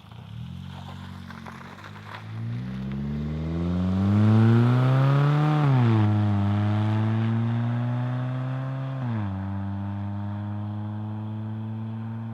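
2006 Mazda 3's 2.3-litre four-cylinder engine with the muffler removed, accelerating. The exhaust note climbs in pitch for a few seconds, drops sharply at an upshift about halfway through, climbs more gently, then drops again at a second upshift about three-quarters of the way through.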